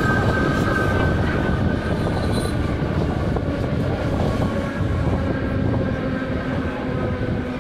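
Czech Railways class 451/452 electric multiple unit running, heard on board. There is a steady rumble of wheels on the track, and several steady whining tones from the running gear ride over it.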